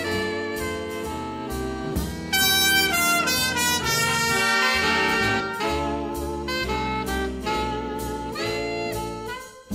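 Big-band swing music with saxophones, trumpets and trombones, played from a 7½ ips reel-to-reel tape recording. A louder brass passage comes in about two seconds in, and the band drops out briefly just before the end.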